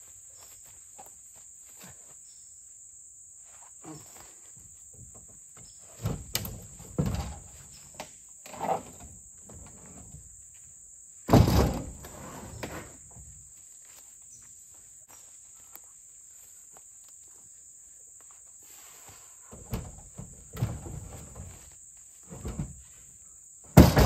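Heavy poplar log rounds being heaved onto a pickup truck's tailgate: several dull thumps and shoves, the loudest about halfway through and another right at the end. A steady high chirring of insects goes on underneath.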